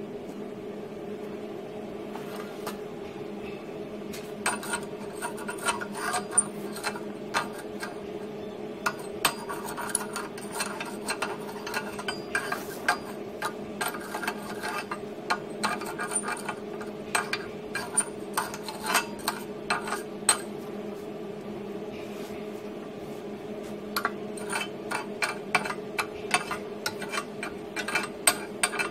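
Steel wire brush and chipping hammer scrubbing and tapping on a fresh flux-core weld to clear off the slag: quick runs of sharp metallic scrapes and clicks, with a pause of a few seconds after the middle. A steady hum sounds underneath.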